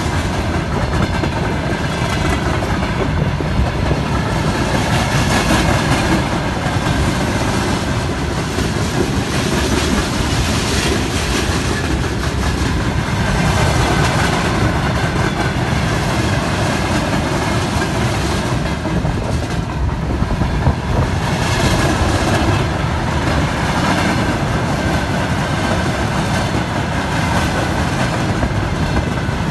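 Freight train of covered hopper wagons and open wagons rolling past close by: a steady, continuous noise of steel wheels running on the rails.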